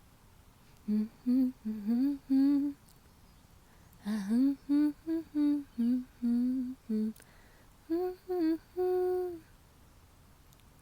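A woman humming a tune without words, in three short phrases of separate notes with brief pauses between them.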